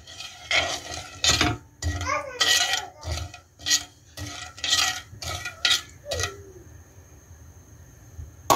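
Metal spoon stirring sugar and water in a stainless steel pot, scraping across the bottom in quick strokes, about two a second, as the sugar is dissolved for syrup. The stirring stops about six seconds in, and a sharp click comes near the end.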